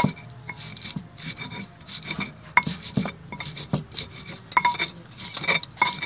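Stone pestle grinding fresh red chilies, shallots and shrimp paste on a flat stone mortar (ulekan and cobek): repeated gritty scrapes and stone-on-stone knocks, roughly one to two strokes a second.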